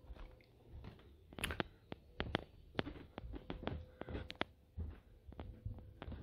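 Footsteps climbing carpeted stairs: irregular soft thuds mixed with sharp clicks, a few each second.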